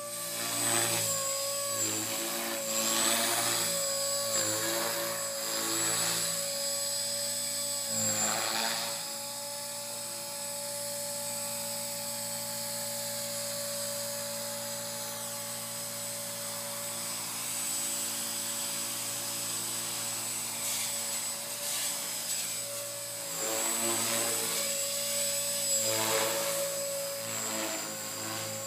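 Blade 450X electric RC helicopter in 3D flight: a steady high whine from the motor and drive that holds one pitch, with the rotor blades whooshing in loud surges through the first several seconds and again near the end, and running steadier in between.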